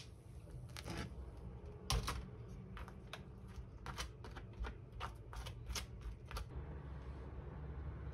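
Spoon scraping and tapping while spreading pesto on a slice of crusty bread on a metal plate: a run of light clicks and scrapes, about two a second, that stop about six and a half seconds in.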